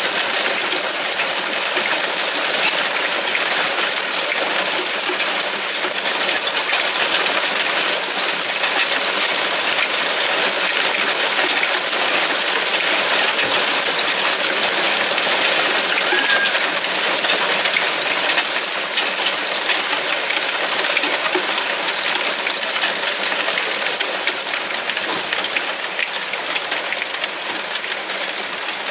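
Heavy hail falling on parked cars and the street: a dense, steady rattle of countless small hits, easing slightly in the second half.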